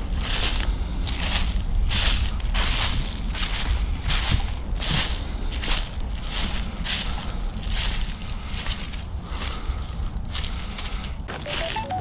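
Footsteps crunching on dry ground cover at a steady walking pace, about three steps every two seconds.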